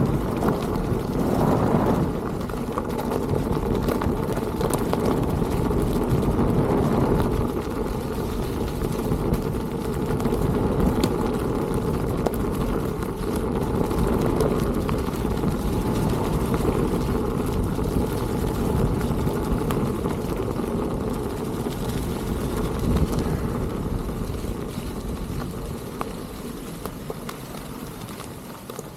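Wind buffeting the microphone and tyre rumble from a moving electric unicycle, a steady noisy rush with small knocks from the road surface. It fades out near the end.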